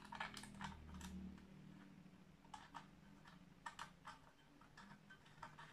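Faint, scattered clicks and light knocks of hand-handling the parts of a circular saw while it is switched off, as the blade cover is closed and fastened after fitting the blade.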